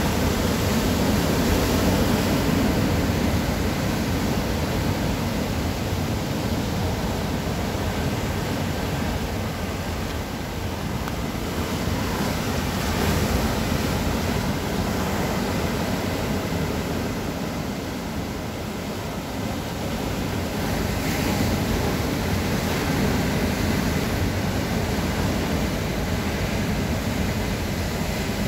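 Rough sea surf breaking and foaming over shoreline rocks: a continuous rushing wash that swells and eases as the sets come in, dipping for a moment about two-thirds of the way through.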